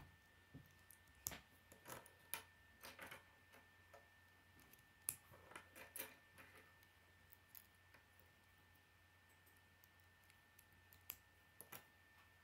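Plastic K'nex pieces clicking as they are snapped together by hand and set down on a wooden table: scattered sharp clicks and taps, irregular, a few louder than the rest.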